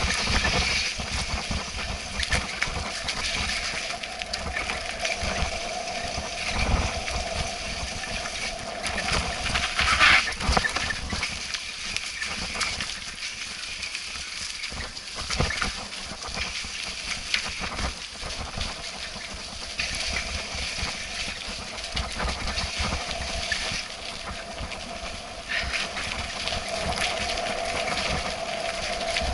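Mountain bike riding fast over a rough dirt forest trail: tyres rolling on dirt and the bike and its mounted camera rattling and knocking irregularly over bumps and roots.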